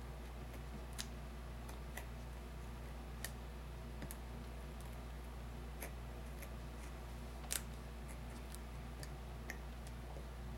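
Scattered small sharp clicks and ticks from an X-Acto hobby knife cutting through a paper template and duct tape on a cutting mat, roughly one a second, the loudest a quick double click about seven and a half seconds in, over a steady low hum.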